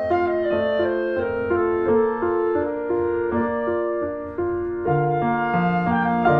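Instrumental background music led by piano with a woodwind melody, its notes changing about every half second; a lower bass part comes in about five seconds in.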